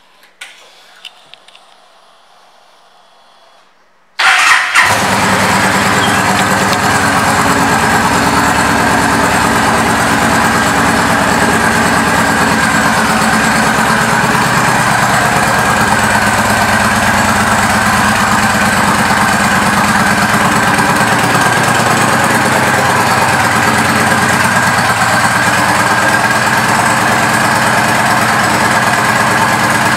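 A 2011 Yamaha Stryker's 1304 cc V-twin, breathing through Cobra aftermarket exhaust pipes, is started about four seconds in. It catches at once and idles steadily after that.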